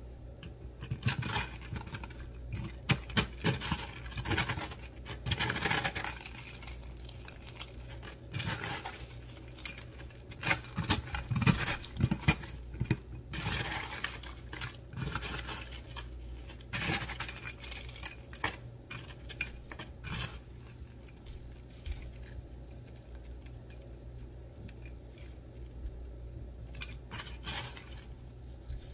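Crushed and shaved ice crunching and crackling as bare hands press powdery ice balls into it in a metal bowl: irregular handling noise, busiest through the first two-thirds, then quieter with a few crackles near the end.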